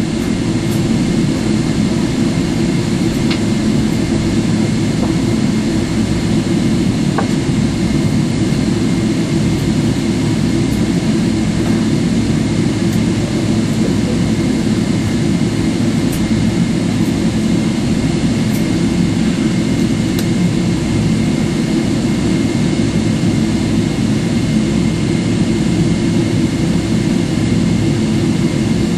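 Steady cabin noise of a Boeing 777-300ER taxiing after landing: its GE90 engines running at taxi idle, heard from inside the cabin as a low rumble with a faint steady whine.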